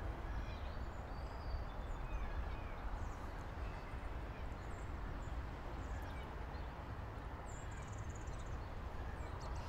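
Outdoor ambience: wind rumbling on the microphone, with small birds chirping now and then.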